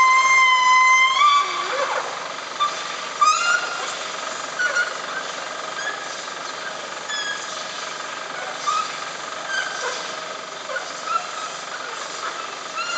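High-pitched screeching from fibre-optic cabling work: a long squeal that shifts in pitch in the first second or so, then short scattered squeaks, rising again into a longer squeal near the end.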